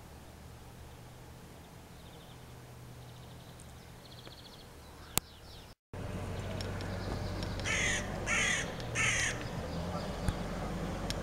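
A crow cawing three times in quick succession, harsh calls a little over half a second apart, over a steady low background hum.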